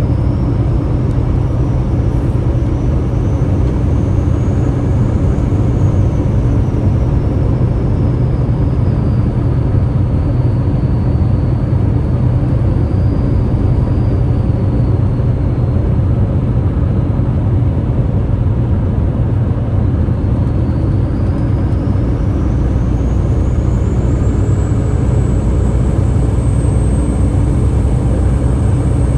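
Waterfall roaring: a loud, steady, deep rush of falling water.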